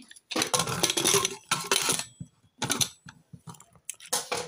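Aluminium pressure cooker lid being fitted and closed, with metal scraping and clinking in a few short spells.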